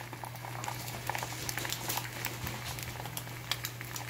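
Beaten egg sizzling in an oiled rectangular omelette pan, a dense run of small crackles and pops, over a steady low hum.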